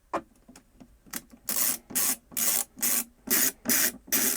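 A screw being driven into a 3D-printed plastic top panel by hand, rasping with each twist of the screwdriver. A couple of clicks come first, then from about a second and a half in the strokes repeat evenly, about two a second.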